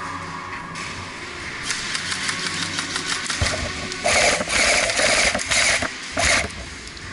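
Several short bursts of fast mechanical rattling, each under half a second, starting about four seconds in, typical of an airsoft electric gun firing on full auto; a low hum with fast clicking runs before them.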